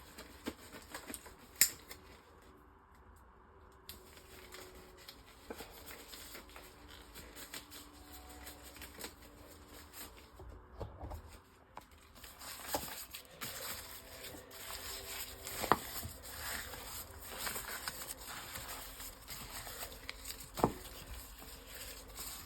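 Rustling of a disposable plastic glove and light handling noises, with a few sharp clicks, one about a second and a half in and two more in the last third.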